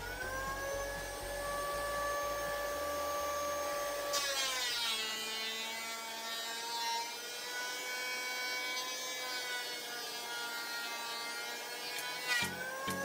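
Electric thickness planer running with a steady whine that sags in pitch as the board feeds through the cutter, about four seconds in and again near the end.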